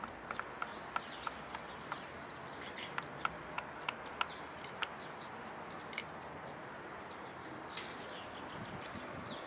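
Hens pecking at food scraps on dirt, beaks tapping on eggshells and ground in sharp, irregular clicks that thin out after about five seconds. Faint bird chirps in the background.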